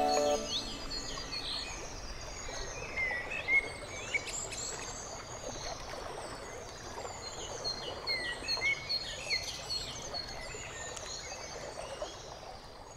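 Birds chirping, with many short chirps and quick whistled notes, over a steady hiss of outdoor ambience.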